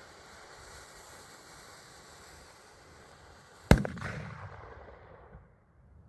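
A steady hiss for nearly four seconds, then a single sharp, loud bang from a 10 g firecracker, followed by a low rumbling echo that fades over about a second and a half.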